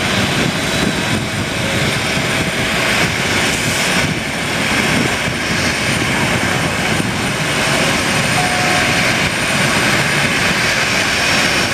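Twin CFM56 turbofan engines of a Boeing 737 Next Generation jet running at taxi idle as it rolls slowly toward the listener: a steady, unbroken jet engine noise.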